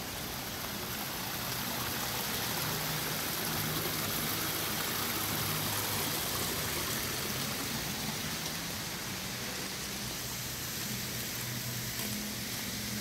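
Water splashing and rushing over rocks in a small landscaped stream or cascade, a steady noise that grows a little louder in the middle.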